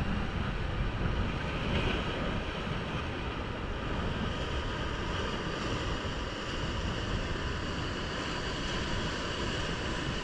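Surf breaking and washing over shore rocks in a steady rush of white water, with wind buffeting the microphone.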